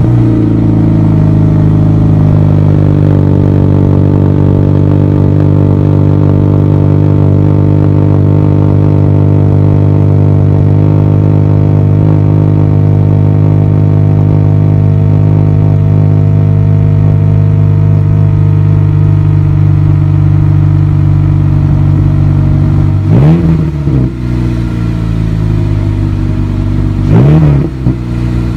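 Honda Civic Si engine heard through its exhaust, starting up and settling into a steady idle over the first couple of seconds. Near the end it is revved twice in quick blips, the pitch rising and falling back each time.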